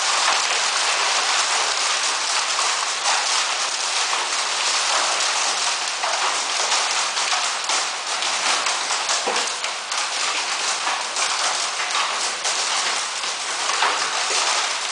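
Heavy rain mixed with hail: a dense, steady rush of rain with many short, sharp ticks of hailstones striking.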